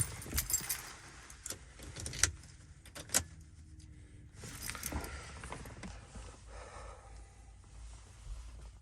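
Light jingling and scattered sharp clicks of small parts being handled, with the loudest click about three seconds in.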